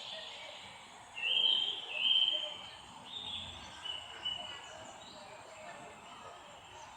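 Wild birds chirping and calling over a steady background hiss. Two louder held whistled notes come about one and two seconds in, followed by softer calls.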